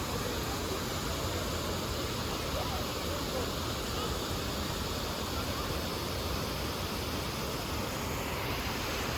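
Steady rushing of falling water, an even hiss with no breaks.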